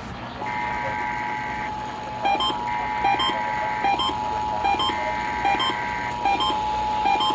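Emergency Alert System tones: three bursts of screechy SAME header data about a second apart, over the steady two-tone attention signal, with a short beep repeating about every 0.7 s from about two seconds in.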